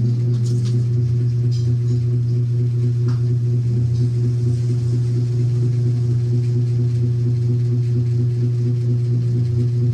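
A loud, steady low hum with fainter higher tones above it, unchanging throughout.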